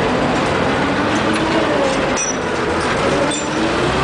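A 1941 Chevrolet COE truck being driven, heard from inside its cab: its engine runs at a steady, loud level under road and cab noise, with faint light rattles.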